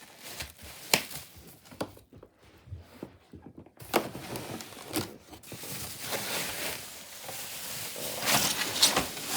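Plastic wrapping and cardboard packaging rustling and crinkling as parts are unpacked, with scattered clicks and knocks at first, then steadier, louder rustling from about four seconds in.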